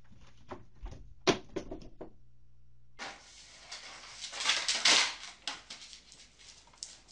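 A cat tree toppling over with a cat on it, with a loud crash a little over a second in among several lighter knocks. Then, from about three seconds in, a stretch of rustling and clatter as a dog pulls something off a kitchen counter.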